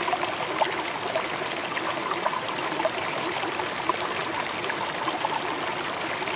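River water flowing over rocks in shallow riffles, a steady wash with many small bubbling pops.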